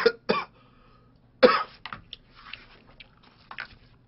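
A man coughing in a fit: two sharp coughs at the start, a louder cough about a second and a half in, then weaker coughs and throat clearing.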